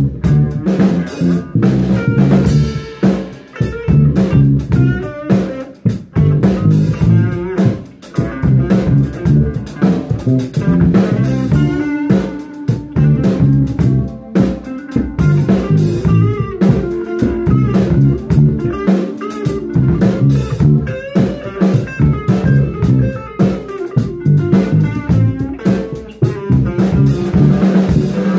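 A live band playing a song together: drum kit, electric bass guitar and keyboards, with a melody line over the groove.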